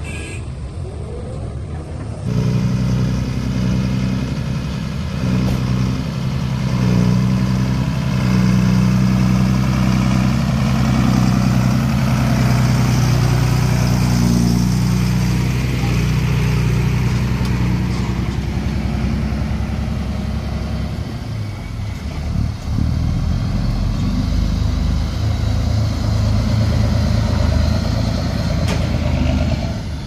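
The diesel engine of a small dump truck running close by as the truck moves off, loud and steady with a low note. It starts abruptly a couple of seconds in, after a quieter stretch of machinery, and its note changes about two-thirds of the way through.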